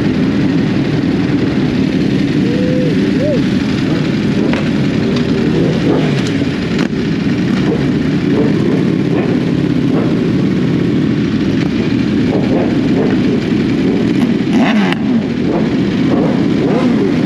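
Several sport-bike engines running together, their overlapping pitches gliding up and down as the throttles open and close, with a few short knocks.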